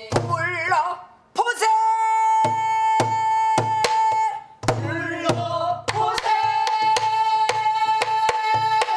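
A woman singing a Korean traditional-style song, holding two long high notes, while accompanying herself on a buk (Korean barrel drum) struck with a stick and the open hand in a steady beat.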